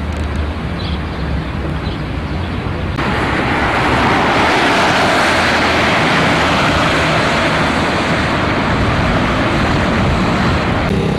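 Steady outdoor rushing noise that starts abruptly about three seconds in, after a quieter stretch with a low hum.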